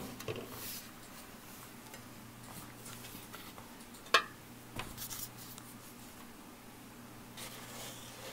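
A few sharp clicks and light knocks as a hand handles a tin clockwork toy boat and its winding key, the loudest about four seconds in, then a brief rustle near the end. A faint steady hum lies underneath.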